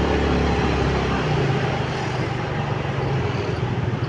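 Ride on a motorcycle in city traffic: a steady engine drone with wind and road noise on the microphone and other vehicles going by. A strong low engine hum drops away about a second in.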